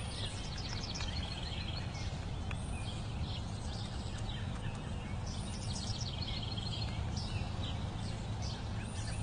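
Birds chirping and trilling over a steady low rumble of outdoor background noise.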